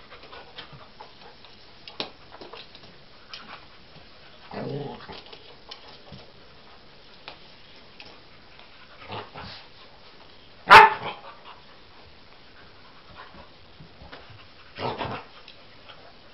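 A dog playing with a squeaky toy, making a handful of short sharp sounds spaced several seconds apart, the loudest about two-thirds of the way through.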